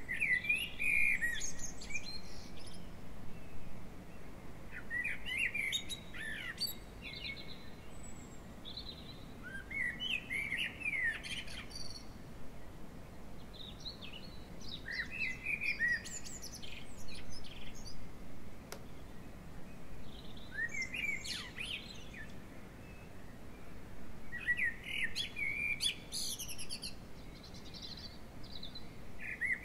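A songbird singing short phrases of quick, falling notes, repeated roughly every four to five seconds.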